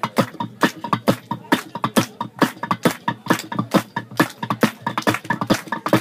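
Long wooden pestle pounding coffee beans in a carved wooden mortar (Bedouin mihbash) in a steady rhythm. There are about two strong knocks a second, often doubled, with lighter taps between. Many knocks carry a short ringing tone.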